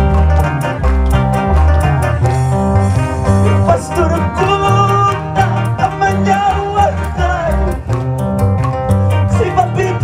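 Live church worship band playing an instrumental passage: electric guitar and electronic keyboards with wavering melody lines over a deep bass line and a steady beat.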